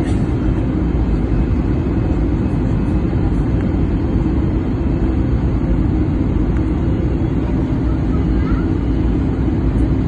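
Steady roar inside an airliner cabin during the descent to landing: jet engine and airflow noise, heaviest in the low end, with a faint steady hum running through it.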